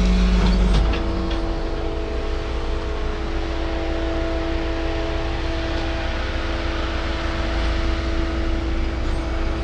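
Tow truck's engine running steadily, a constant low rumble with a steady whine over it. The rumble drops slightly about a second in and then holds.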